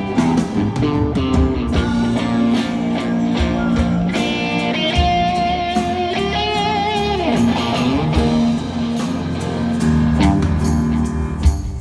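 Live rock band playing, heard through a phone's microphone, with electric guitar loudest over drums and bass; about halfway through, the guitar holds a high note with wide vibrato.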